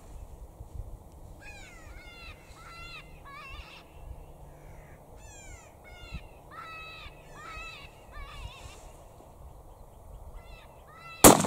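Short, nasal, pitched animal calls repeated every half second or so, several voices overlapping, then one loud, sharp crack with a ringing tail just before the end.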